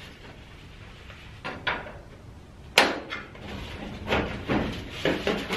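Sheet-metal stove pipe knocking and clanking as an elbow and a length of duct are worked together by hand: a run of sharp knocks, the loudest about three seconds in.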